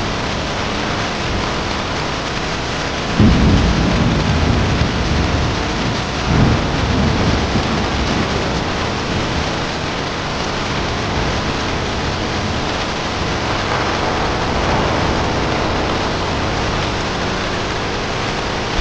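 Steady heavy rain, with a low roll of thunder about three seconds in and a second one about three seconds later.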